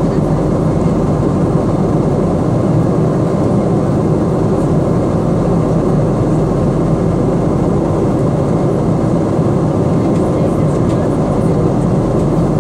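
Steady jet-engine and airflow noise inside the cabin of a Boeing 777-200 in flight, an even low roar with no changes.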